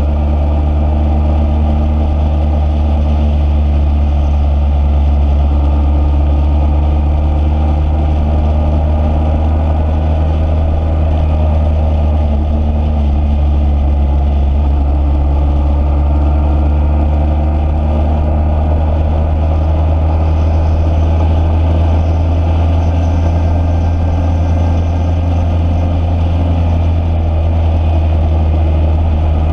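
An engine running at a steady speed: a loud, constant low drone whose pitch holds even throughout.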